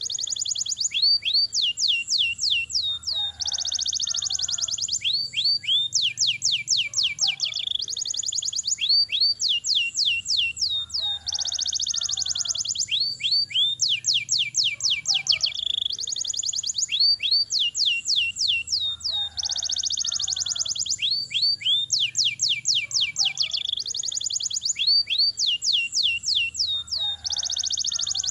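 Domestic canary singing a long rolling song: fast trills of high, downward-sweeping notes alternating with buzzy rolls. The same phrases come round again every few seconds without a break.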